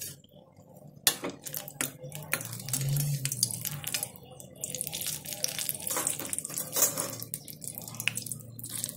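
Wheat paniyaram batter balls deep-frying in hot oil, sizzling and crackling with a dense patter of small pops, louder from about a second in, as a perforated metal skimmer turns them.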